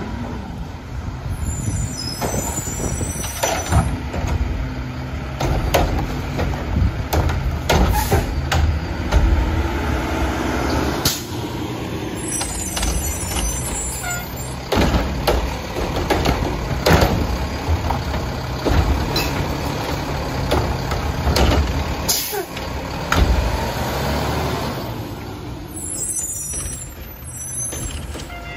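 Front-load garbage truck with a Curotto-Can cart arm working the curb: its diesel engine runs with a steady low rumble, broken by repeated short air-brake hisses and clanks as it stops, moves on and grabs carts.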